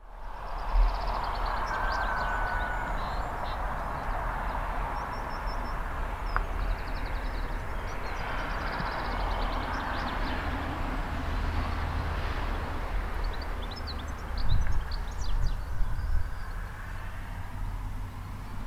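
Wind gusting through vegetation and rumbling on the microphone, with small birds singing in short chirps and trills throughout. A few low thuds come near the end.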